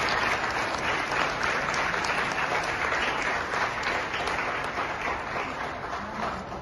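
Audience applauding, a dense patter of many hands clapping that slowly fades toward the end.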